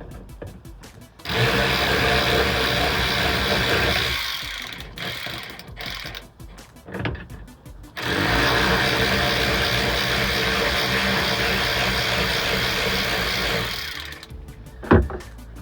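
Handheld electric power tool motor running in two long runs, about three seconds and then about six seconds, spinning off fasteners on an outboard's control box cover. A single sharp click comes near the end.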